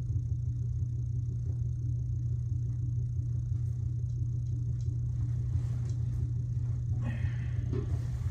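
Front-loading washing machine running with a steady low hum, and cloth rustling briefly near the end.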